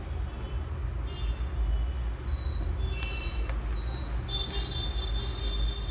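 Steady low background rumble, with faint high thin tones coming and going, strongest in the second half.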